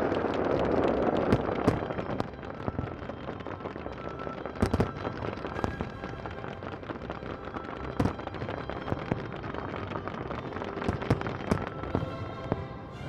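Aerial fireworks going off: dense crackling for the first two seconds, then scattered sharp bangs over continuous crackle.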